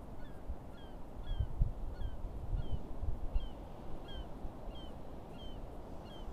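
A bird calling over and over: short, high, downward-slurred calls, about three every two seconds, evenly spaced, over steady wind and water noise with a few low bumps.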